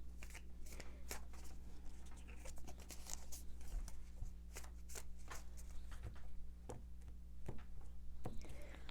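A deck of tarot cards being shuffled by hand: an irregular run of soft flicking and slapping clicks, several a second.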